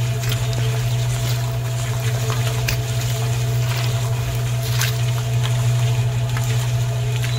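A steady low mechanical hum, like a small motor running, that holds unchanged throughout, with a few faint clicks and taps over it.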